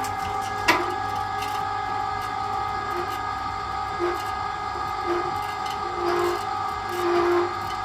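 Electric roofing hoist's winch motor running with a steady whine. There is a sharp click about 0.7 s in, and short low squeaks about once a second in the second half.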